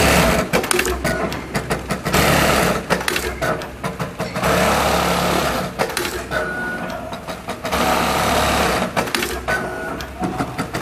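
Chaocheng automatic pattern sewing machine with a thread catcher, stitching at high speed. It runs in steady stretches of one to two seconds, broken by short dips full of sharp clicks.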